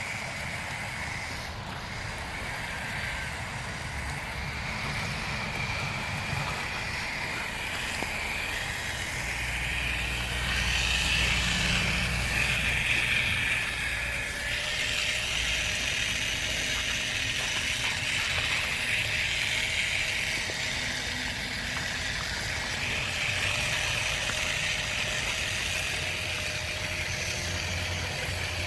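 Homemade RC crawler with 3D-printed front skis driving through snow: its motor and gears whine steadily, swelling and fading as it drives.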